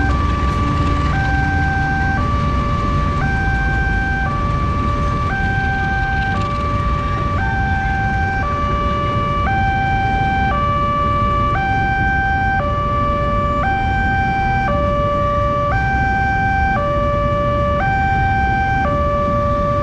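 Railway level-crossing alarm sounding a two-tone hi-lo warning, stepping between a high and a low pitch about once a second, over the low rumble of idling road traffic.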